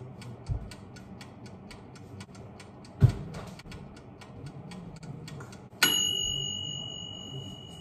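Pop-up toaster's mechanical timer ticking evenly, about four ticks a second, with a couple of dull thumps. Near six seconds in a sharp metallic ding rings out and slowly fades: the timer has run out and the toast is done.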